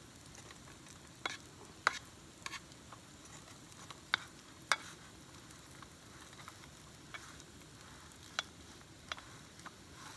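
Bannock dough frying in hot oil in a camp skillet: a faint sizzle with irregular sharp ticks and pops as a spatula presses and flattens the dough in the pan.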